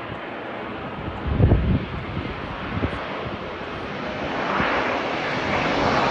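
Airliner engines during a crosswind landing, a steady noisy din. A heavy low thump comes about one and a half seconds in and a smaller one near three seconds. The engine noise swells and grows brighter over the last second or two.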